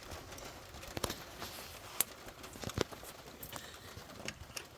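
A few scattered sharp clicks and knocks, the strongest about two seconds in, from hand tools and metal parts being handled while the thermostat housing is lined up on the engine.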